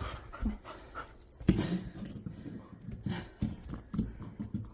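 Electronic mouse squeaking from a furry cat-toy ball, coming in several short bursts of rapid high chirps, with low thumps and knocks as a puppy mouths and paws at the ball.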